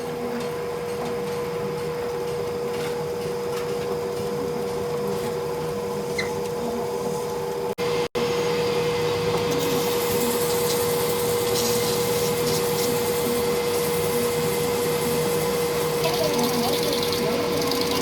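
Workshop machine running steadily, a constant tone over rubbing, scraping noise. It cuts out briefly about eight seconds in and comes back a little louder.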